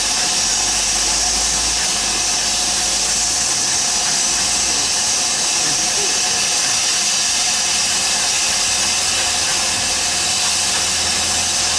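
Steam locomotive giving off a steady hiss of escaping steam.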